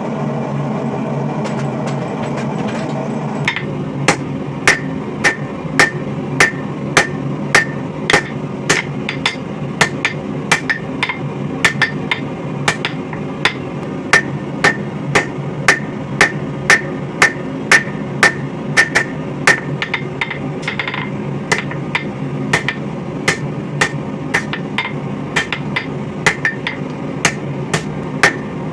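Hand hammer striking hot coil-spring steel on an anvil in a steady rhythm, a little more than one blow a second, each blow ringing briefly. The blows start a few seconds in, over the steady drone of the forge.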